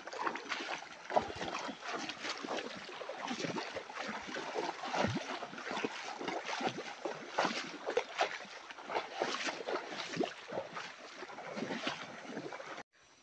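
River water rushing and splashing, with many irregular splashes, cutting off abruptly near the end.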